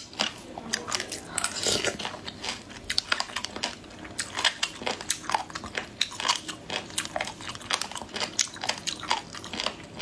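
Close-up chewing and crunching of food, many short sharp crunches and mouth clicks in quick, irregular succession.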